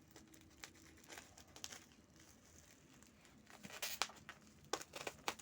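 Protective packaging around a glass refrigerator shelf being handled and pulled off, with irregular crinkling and crackling. It gets louder with a few sharper crackles from about two thirds of the way in.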